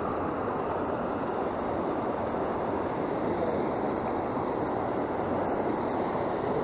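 Mountain stream rushing over rocks in whitewater rapids: a steady, even rush of water.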